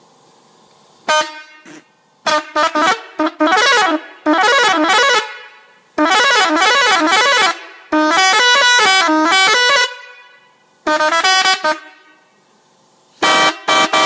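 Six-trumpet telolet musical horn playing several loud bursts of quick notes that step up and down, with short pauses between.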